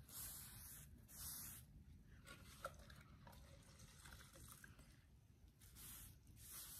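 Faint swishes of a damp scrub sponge wiped across a chalk-painted wooden surface in a few separate strokes, at the start, about a second in and again near the end, lifting off the water-softened paint to bare the distressed edges.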